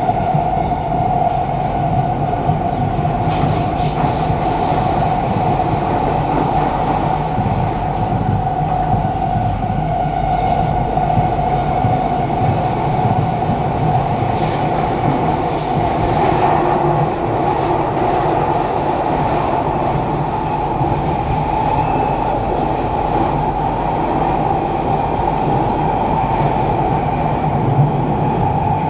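Kawasaki–CRRC Sifang C151A metro train running at speed through a tunnel, heard from inside the carriage: a loud, steady rumble of wheels on rail with a constant high drone over it.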